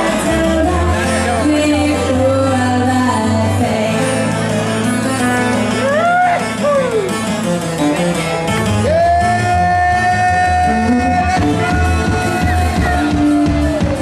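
Live band playing an upbeat, danceable song with singing. About six seconds in a note swoops up and back down, and from about nine seconds one long note is held nearly to the end.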